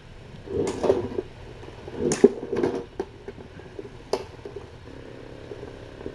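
Scuffling and knocking of cats at play: a short scuffle about half a second in, a longer one around two seconds, and a single sharp knock near four seconds.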